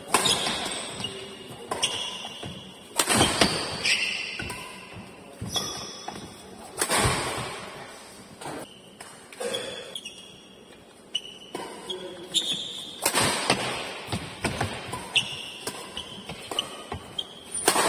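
Badminton doubles play: sharp smacks of rackets hitting the shuttlecock, at irregular intervals, among squeaks of shoes and footfalls on the court floor.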